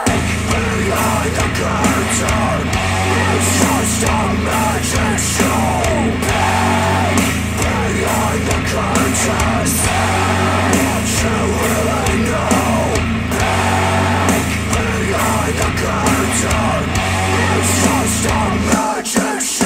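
Music with a singing voice over a steady bass line, played back through Polk Audio XT15 bookshelf speakers driven by a Yamaha A-S301 integrated amplifier. The bass drops out briefly near the end.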